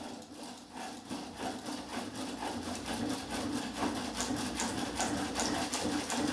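Quanser Shake Table II driving a plastic rod-and-connector bridge model back and forth: a fast, even rattle of about six clicks a second from the model's joints and the table, growing louder, over a steady electric hum.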